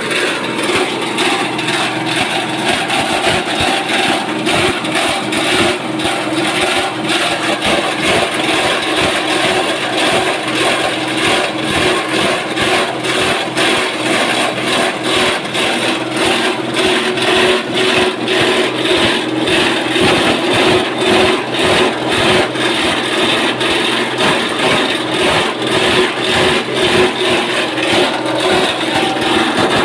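Multifunction shredding machine (type SM-30) running and chopping material: a steady machine hum under a dense, continuous rattling. One tone falls in pitch over the first several seconds.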